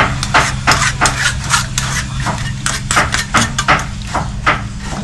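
Knife mincing lemongrass by hand, chopping in quick, uneven strokes of about four a second, over a steady low hum.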